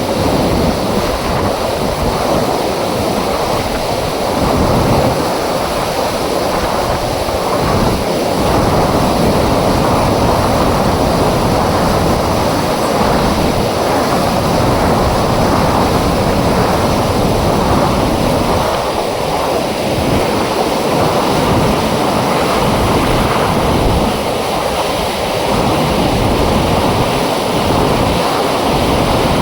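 Water rushing out through an open dam flap gate: a loud, steady rush of falling water.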